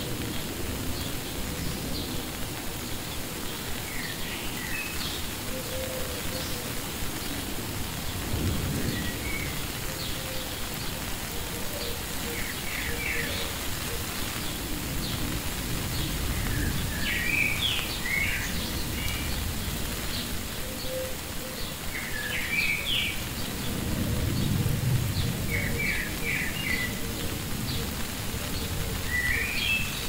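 Steady rain falling, with low rumbling that swells twice, about eight seconds in and again near the end. Short high bird chirps come in quick little clusters throughout, busier in the second half.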